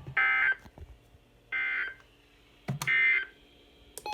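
Emergency Alert System end-of-message data tones: three short, buzzy digital bursts about 1.3 s apart. They are the code that closes the severe thunderstorm warning broadcast.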